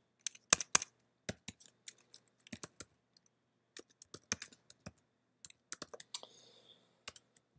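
Typing on a computer keyboard: a run of irregular, sharp keystrokes with a short pause about three seconds in.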